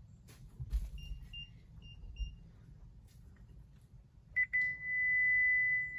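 Vauxhall car's electronic warning beeper: four short high beeps about a second in, then, after a couple of clicks, a continuous steady tone starting about four and a half seconds in.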